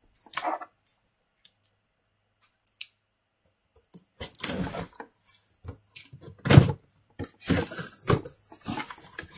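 Cardboard shipping box being cut open with a knife and its flaps pulled back: scraping and rustling of cardboard, with one sharp knock about six and a half seconds in. The first few seconds are nearly quiet.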